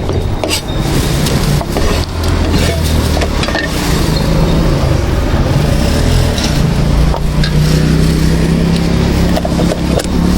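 A motor vehicle's engine running steadily, a low hum that rises a little in pitch in the second half, with a few short knocks over it.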